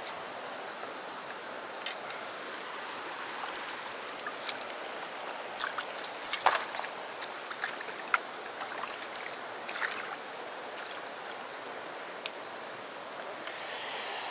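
A shallow stream running steadily over rocks, with scattered irregular clicks and knocks from footsteps on the streamside stones.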